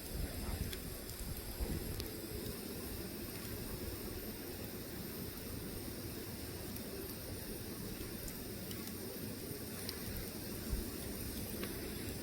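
Burning wood logs: a steady low hiss and rustle of the fire with a few sharp, scattered crackles and pops.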